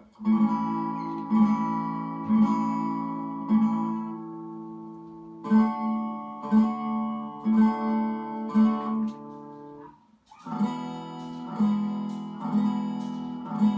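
Recorded acoustic guitar chords played back through a Dynaco ST-70 tube amplifier and an 8-ohm speaker, strummed in slow, even strokes about once a second, with a brief pause about ten seconds in.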